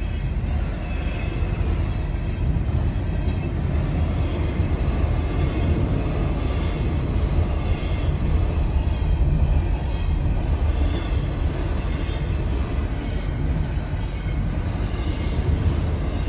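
Double-stack container freight train rolling past a level crossing: a steady, deep rumble of wheels on rail, heard from inside a car.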